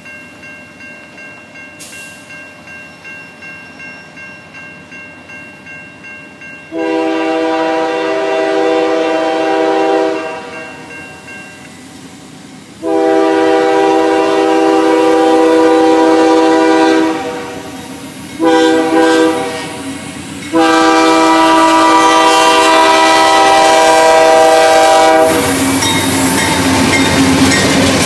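Diesel freight locomotive's multi-note air horn sounding the grade-crossing signal: long, long, short, long. Before it a bell rings steadily, and near the end the locomotives pass close by with a loud rumble of engines and wheels.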